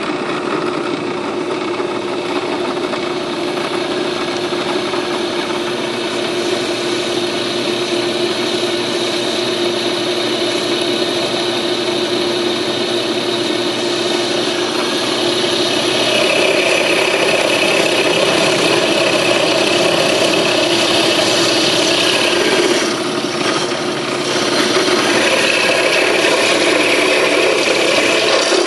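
Bench drill press motor running as a step drill bit cuts a new lug hole through a cast iron brake rotor: a steady motor hum under the grinding of the bit in the metal. About halfway through the cutting grows louder with a higher ringing screech, eases for a moment, then picks up again.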